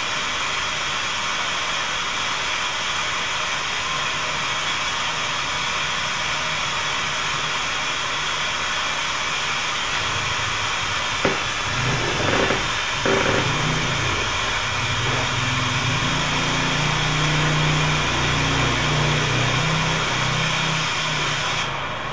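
Waterfall and stream, a steady rush of water splashing onto rocks. About halfway through, a couple of knocks and some low, wavering sounds join in.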